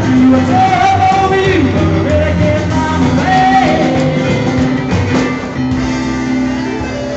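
Live rock and roll band: a man singing over keyboard piano and drums. The voice drops out near the end, leaving the piano and drums playing on.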